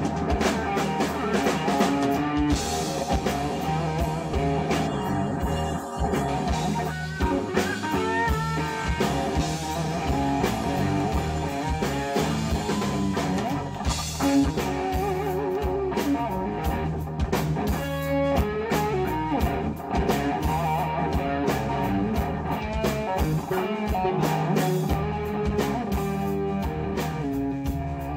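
A live rock band jamming: lead electric guitar playing over drum kit and bass guitar.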